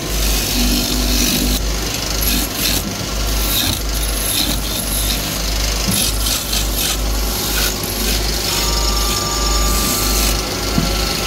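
Wood lathe running while a long hand-held turning tool cuts into a spinning wooden spindle: a continuous scraping of steel on wood over a steady low motor hum.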